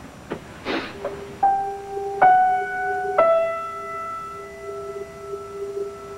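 Piano played slowly, one note at a time: a handful of single notes struck a second or so apart, each left ringing and stepping gently down in pitch, over a held lower note. A short soft hiss comes just before the first notes.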